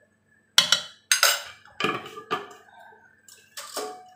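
Kitchen clatter of dishes and utensils: about five sharp knocks and clinks over three seconds, the last ringing briefly.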